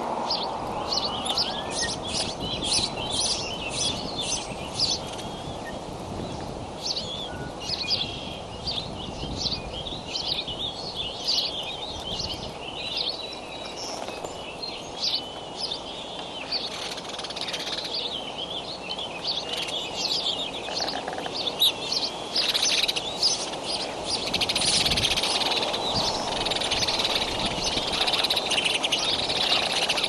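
Wild birds chirping and singing around an outdoor nest, many short high calls in quick succession over a steady background hiss, growing denser and louder in the last few seconds.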